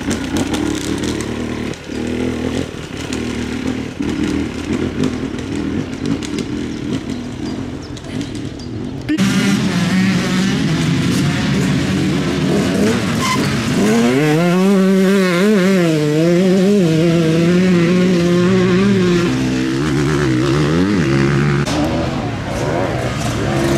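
Enduro motorcycle engines running. About nine seconds in the sound cuts to a louder, closer engine whose pitch rises and falls several times as the throttle is worked.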